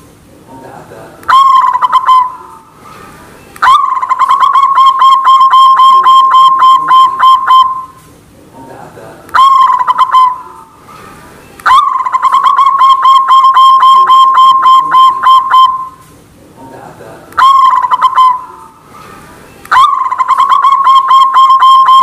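White zebra dove (perkutut) singing its cooing song three times. Each song is a short opening coo, then a long run of rapid staccato coos, about five a second, lasting some four seconds.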